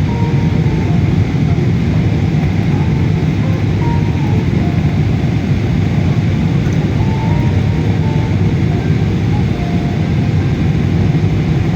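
Steady noise of a passenger airliner heard from inside the cabin after landing, a dull, even drone without changes.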